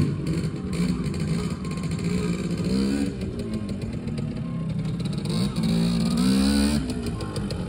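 1983 Simson S51's two-stroke engine running, revved up twice, once about a third of the way in and again near the end. Its exhaust leaks where the header pipe meets the middle silencer, which the owner says is damaged.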